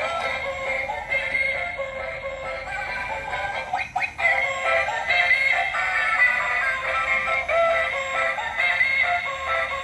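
A battery-operated toy duck playing its electronic tune with synthesized singing through its small built-in speaker, thin and without bass. A short knock and dip in the music comes about four seconds in.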